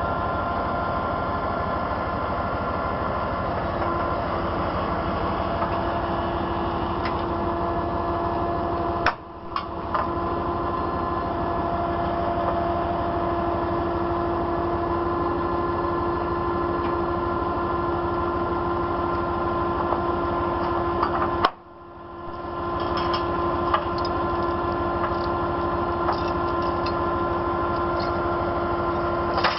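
Heavy tow truck's engine running with a steady hum. The sound drops out suddenly and briefly twice, about nine seconds in and again about twenty-one seconds in.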